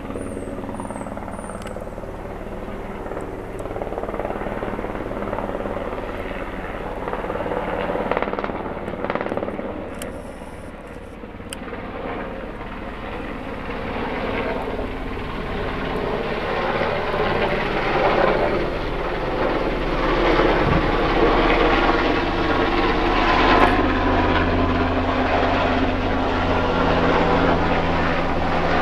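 Irish Coast Guard Sikorsky S-92 search-and-rescue helicopter flying low overhead: a steady rotor beat and turbine rush. It grows louder through the second half as the helicopter comes closer.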